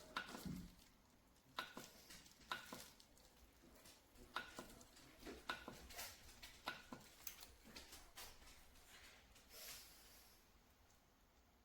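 Faint, irregular clicks and taps, about a dozen, like small objects being handled and set down.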